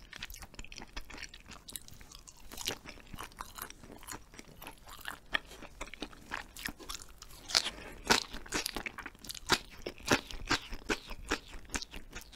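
Close-miked mouth sounds of eating: soft, quiet chewing at first, then from about seven and a half seconds in a run of sharp, crisp crunches as a seasoned chive stalk is bitten and chewed along with hagfish-skin jelly.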